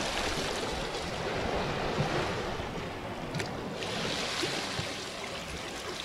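Small Black Sea waves washing against a concrete seawall: a steady rushing hiss that swells and eases.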